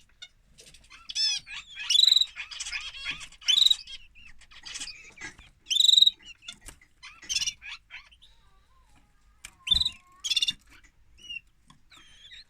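Domestic canary singing in short bursts of chirps and trills, several phrases with pauses between them, and a single soft knock about ten seconds in.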